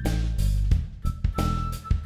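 Background funk music with a drum-kit beat and bass line.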